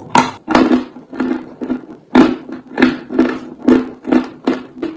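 Dry chalk being chewed, a chunk crunched between the teeth in a steady run of sharp dry crunches, about three a second.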